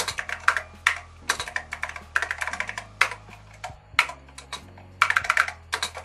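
Typing on a Radio Shack TRS-80 Model I keyboard with ALPS mechanical key switches: several quick runs of crisp key clicks with short pauses between them.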